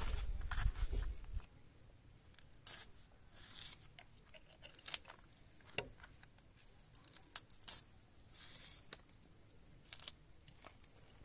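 Small knife slicing through green chillies held in the hand, a short crisp cut every second or so. There is a low rumble in the first second or so.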